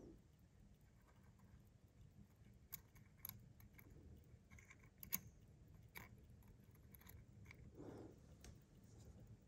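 Faint, sparse light clicks of metal tweezers against the parts of a Seiko 8346 automatic watch movement as its rotor and winding bridge are worked loose and lifted off. The sharpest click comes about five seconds in.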